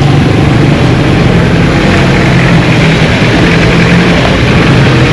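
A motor vehicle engine running steadily close by, with the hum of road traffic.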